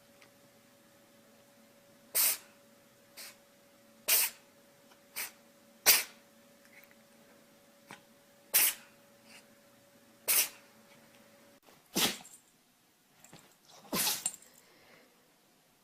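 Pets sneezing: a run of short, sharp sneezes, about nine in all, spaced one to two seconds apart.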